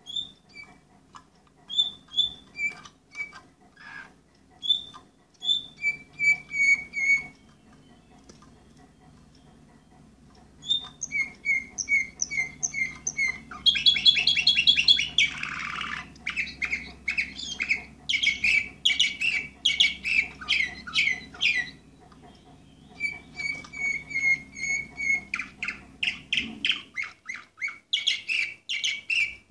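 Orpheus canary singing: phrases of repeated chirps and fast trills, broken by a pause of a few seconds about a third of the way in. The loudest part is a rapid rattling trill about halfway.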